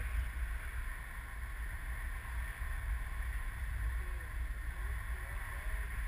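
Wind rushing over an action camera's microphone in paragliding flight: a steady, buffeting low rumble with a hiss above it.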